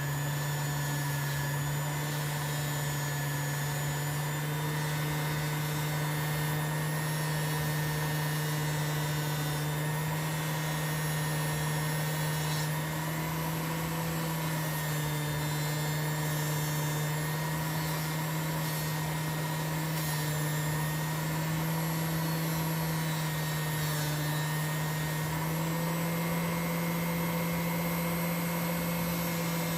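Electric motor of a buffing wheel running steadily with an even hum, its pitch shifting slightly a few times.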